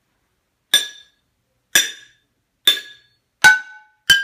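Pans struck one at a time with a big spoon, five strikes about a second apart, each ringing briefly at a different pitch.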